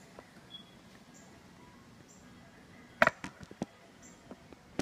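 Faint room tone, then about three seconds in a quick run of sharp clicks and knocks, followed by a few lighter ticks, as small coffee-kit items are handled and set down.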